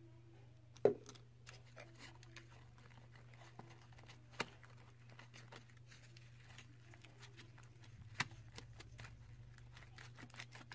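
Wooden craft stick stirring sticky, half-formed slime in a plastic bowl: a run of small sticky clicks and pops, with a sharper knock about a second in and others near the middle and near the end. A steady low hum runs underneath.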